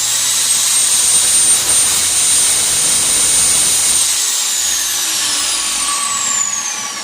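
Craftsman 8-1/4-inch 13-amp table saw running at full speed with a loud, high whine, then switched off about four seconds in and winding down, its pitch falling steadily as the blade coasts.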